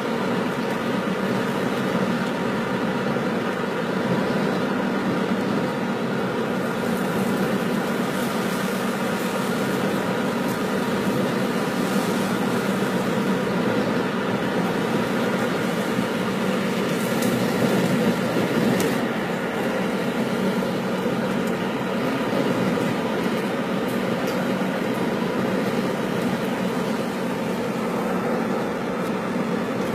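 Steady road noise of a car driving, tyres and engine heard from inside the cabin, an even low rumble that does not change.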